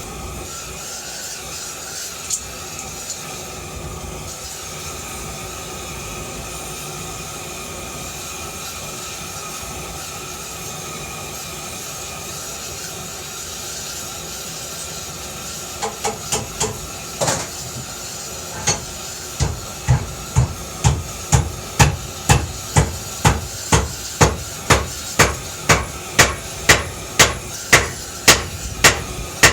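Hammer blows on steel bar stock, bending its end over into a clamp foot, over a steady rushing hiss. A few scattered blows come about sixteen seconds in, then a steady run of ringing strikes at about two a second.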